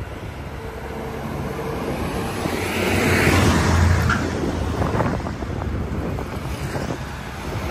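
Wind noise on the microphone over the low rumble of street traffic, swelling louder about three to four seconds in as vehicles pass close.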